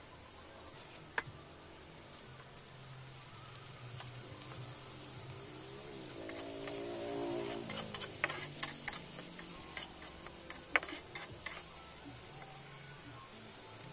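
Chopped scallions frying in oil in a wok, with a faint steady sizzle; from about the middle onward a metal spatula clicks and scrapes against the wok as they are stirred, the loudest sound here. Just before the stirring a short wavering pitched sound is heard in the background.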